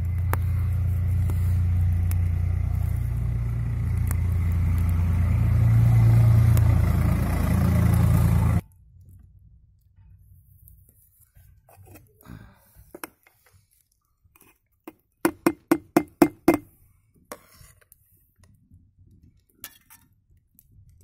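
A loud low rumble that cuts off suddenly about eight and a half seconds in. Then, about fifteen seconds in, a quick run of about seven ringing clinks: a steel ladle knocking against a steel bowl.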